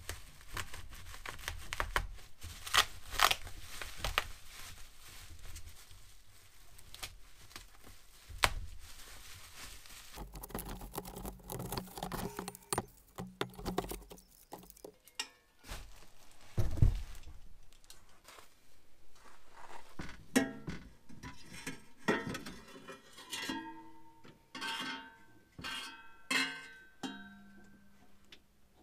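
Bubble wrap and packing tape being torn and crinkled off new exhaust pipes, in irregular crackling strokes. Background music with plucked strings runs under it and is plainest in the second half.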